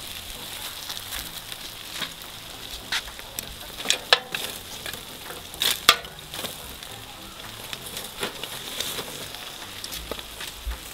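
Metal tongs clicking and knocking against charcoal and the steel mangal, with foil rustling, as foil-wrapped mackerel is pulled out of the embers. A few sharp knocks stand out, the loudest about four and six seconds in, over a steady faint hiss.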